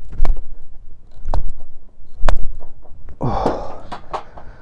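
Close handling noise from unhooking a trout with fishing pliers: several sharp clicks and knocks over low thumps, with a man's loud breathy gasp about three seconds in.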